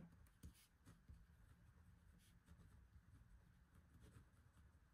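Faint scratching of a ballpoint pen writing on paper, in short strokes.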